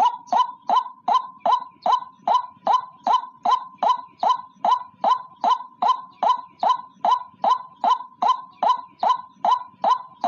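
White-breasted waterhen calling: a fast, evenly repeated series of short sharp notes, about two and a half a second, played back as a bird-lure recording.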